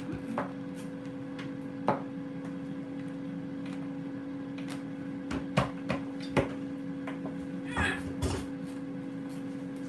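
A steady two-note hum from a running kitchen appliance, with scattered light clicks and knocks of things being handled, bunched together in the second half.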